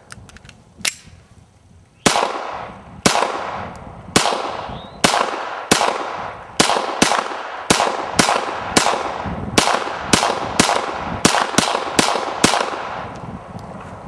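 A rapid string of about eighteen semi-automatic gunshots, about a second apart at first and quickening toward the end, each followed by a ringing echo that trails off. A sharper, quieter click comes about a second in, before the firing starts.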